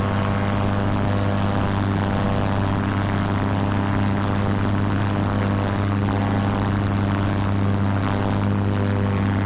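Paramotor engine and propeller running at a steady, unchanging pitch.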